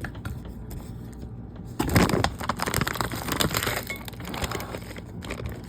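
Plastic frozen-vegetable bag crinkling and crackling as it is handled and opened, a dense burst of about two and a half seconds starting about two seconds in.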